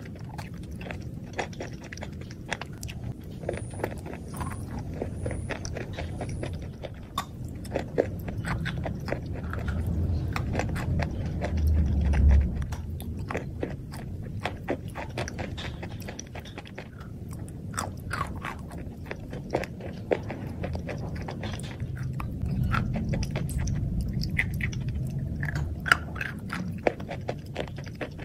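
Close-up mouth sounds of someone biting and chewing a soft, crumbly white chalk-like substance: continuous wet chewing with many small crunches and clicks. About twelve seconds in there is a dull, low bump, the loudest moment.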